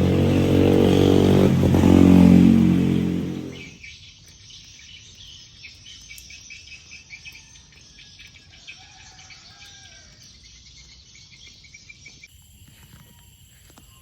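A motor vehicle's engine runs loudly and then fades away about four seconds in. After that there is a quiet outdoor background of insects chirping in a steady rapid pattern, with a few bird calls.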